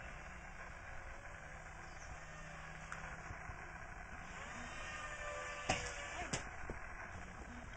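Radio-controlled model airplane's motor and propeller droning overhead, its pitch wavering slowly as the plane flies about. Two sharp knocks about two-thirds of the way through.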